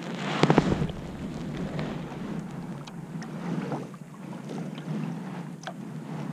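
Kayak paddle strokes splashing and dripping in calm water, with wind rumbling on the microphone; a louder burst comes about half a second in.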